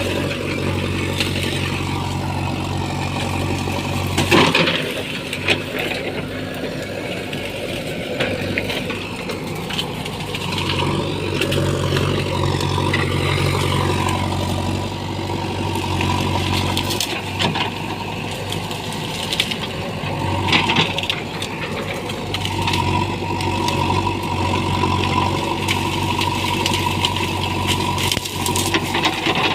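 JCB 3DX backhoe loader's diesel engine running steadily, its note rising and falling as it works under load, with several sharp knocks and rattles from the machine at work, the loudest about four seconds in.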